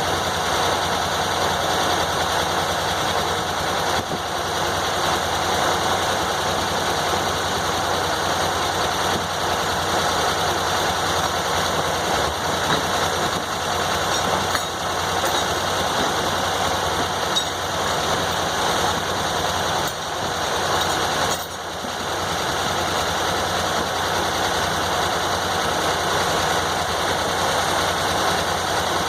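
Engine-driven circular sawmill with a 48-inch blade running steadily, its engine note even. The level dips briefly about three-quarters of the way through.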